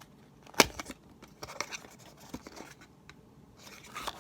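Small handling noises from a plastic puzzle cube (a bandaged Z cube) and its packaging: one sharp click about half a second in, then a run of lighter clicks and scrapes.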